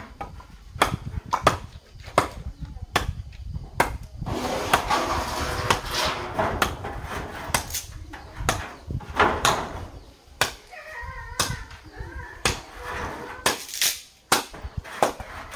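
Irregular sharp knocks of hand tools striking wooden poles, a dozen or more blows spaced unevenly, as a timber hut frame is worked on.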